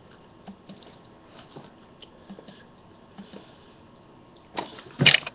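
Faint small mouth and rustling noises from a person close to a webcam microphone in a small room, with a short, loud noisy burst near the end.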